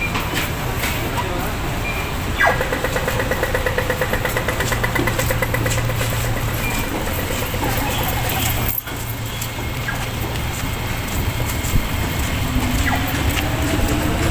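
Pedestrian crossing signal starting about two and a half seconds in with a quick falling tone, then a rapid, even ticking for several seconds that marks the green man. Under it, a steady low hum of traffic waiting at the lights.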